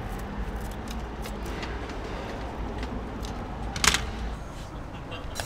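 Food-stall working sounds: a steady low hum with light metal clicks and clinks of utensils and waffle-iron parts, and one sharp clink about four seconds in.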